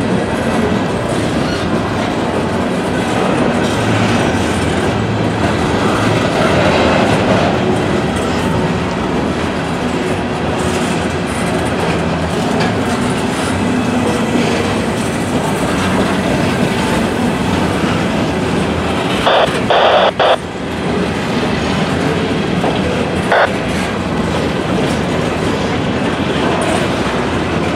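Empty Norfolk Southern coal hopper cars rolling steadily past, their wheels rumbling and clacking over the rail joints. About two-thirds of the way through there is a short burst of louder banging.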